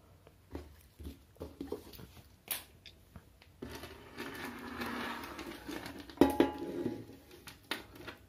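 Small parts and tools being pushed aside on a tabletop, then a thin bent aluminium U-channel laid down: light clicks and clatter, a few seconds of scraping and sliding in the middle, and a sharp knock about six seconds in.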